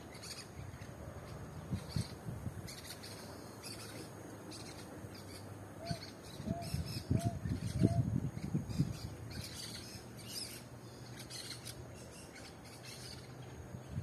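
Parakeets chattering in a treetop, many short shrill chirps coming in scattered bursts. About halfway through come four lower, evenly spaced notes, along with some low rumbling.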